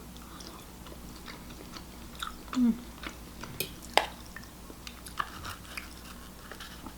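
Close-up chewing of lobster meat with wet mouth clicks and small crackles, a brief low hum about two and a half seconds in, and a sharper snap about four seconds in.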